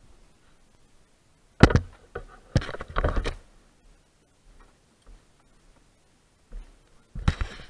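A few short bursts of clicking, knocking and rustling, about two seconds in, again a second later, and near the end: the Caterham Super 7's racing harness straps and buckle being handled and fastened.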